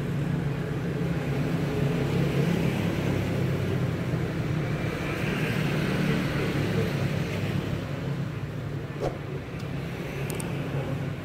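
Steady low rumble of motor vehicle traffic, with a couple of light clicks near the end.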